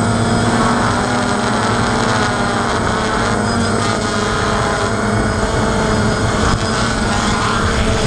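DJI Phantom quadcopter's brushless motors and propellers whirring steadily with a slightly wavering pitch, heard close up from the camera mounted on the drone itself.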